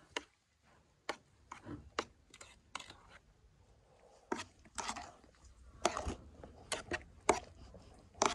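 Metal spoon mashing and stirring chopped feijoa in an enamel bowl: irregular clinks and scrapes of the spoon against the bowl, roughly two or three strokes a second.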